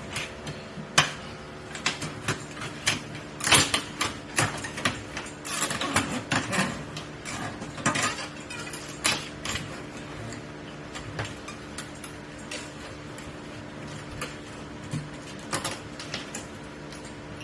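Irregular clicks, snaps and scrapes of the old rubber gasket being pried and pulled out of a car's panoramic sunroof trim. The clicks are thickest in the first half and grow sparse later.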